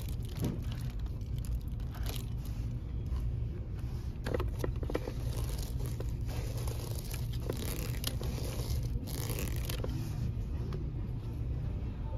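A hand handling boxed candy packaging on a store shelf: irregular scraping and crinkling, busiest in the second half, over a steady low hum.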